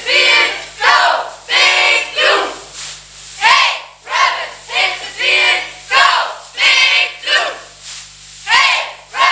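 A cheerleading squad shouting a chant in unison, in short rhythmic phrases of several syllables each, with brief pauses between the phrases.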